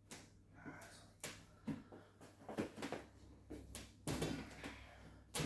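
Scattered short knocks and clicks at irregular intervals, with a louder, busier stretch about four seconds in.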